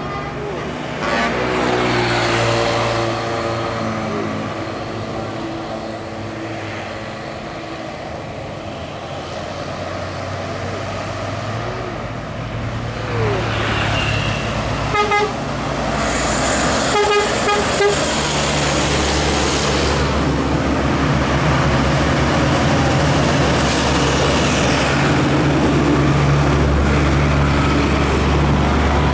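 Trucks and buses passing on a road, with horns sounding: pitched toots in the first few seconds, then two bursts of quick repeated horn notes from a bus about halfway through. After that, a heavy diesel bus engine runs steadily and gets louder as a bus passes close.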